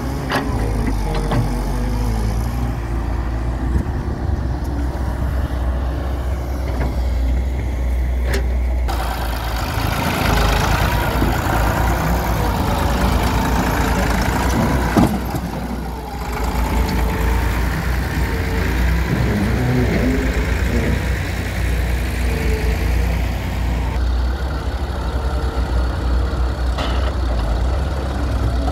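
Diesel engines running with a steady low rumble: a Hyundai Robex 1300W wheeled excavator loading earth and a tractor pulling a loaded trolley. The sound changes abruptly about nine, sixteen and twenty-four seconds in.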